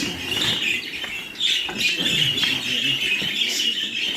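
Many budgerigars chattering and chirping together without a break, a dense flock twitter, with a low murmur of people's voices underneath.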